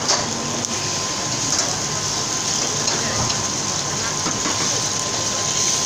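Steady rushing noise of a restaurant's open cooking station, with gas burners under a wok and a steaming soup pot, and a few light clicks.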